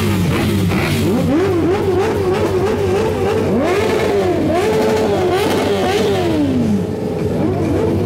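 Yamaha YZF-R1 inline-four sportbike engine revved hard in quick repeated throttle blips, its pitch rising and falling about twice a second. Near the end it makes one long fall in pitch back toward idle.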